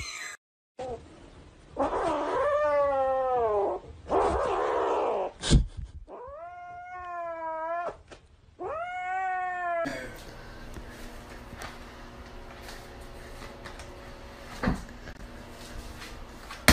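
Kitten yowling in three long, drawn-out meows, the first the longest. Later comes one sharp knock.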